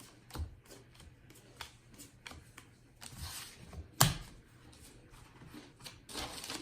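Baseball trading cards being handled and flipped through one by one: a run of soft clicks and slides of card stock, with one sharper, louder tap about four seconds in.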